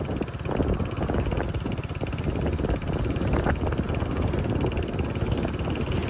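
Motorcycle riding along a road: steady engine and road noise, with wind rushing over the microphone.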